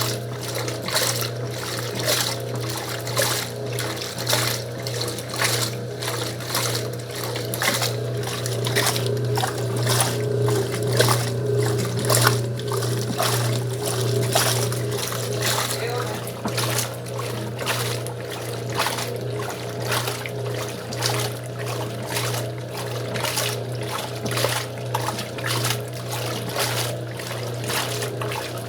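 Old Wanke washing machine running a wash: a steady low motor hum under rhythmic splashing and sloshing of water and clothes as the agitator swings back and forth.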